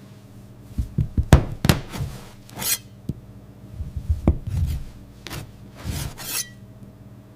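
A series of irregular knocks, taps and short scraping rubs, like items being handled and set down, over a faint steady machine hum.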